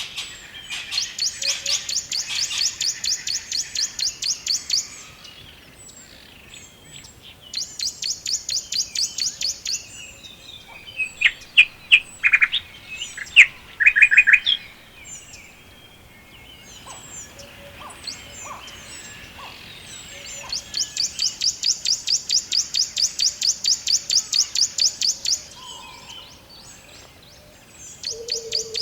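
Songbirds singing. One bird repeats a long, fast, high trill of about ten notes a second, lasting several seconds, three times. In the middle, another bird gives a burst of louder, sharper chirps.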